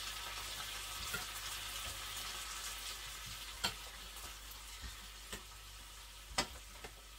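Food sizzling in a frying pan on the stove: a steady frying hiss that slowly fades. A spoon clinks against the pan a few times.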